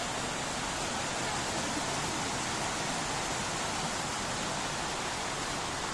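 Small waterfall cascading over rocks, a steady rush of falling water.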